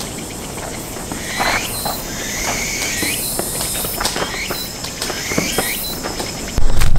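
Short, high, squeaky chirps and sliding squeals come every second or so over a faint high hiss, with a few light clicks. About six and a half seconds in, loud rumbling and rubbing handling noise starts as the camera is picked up by hand.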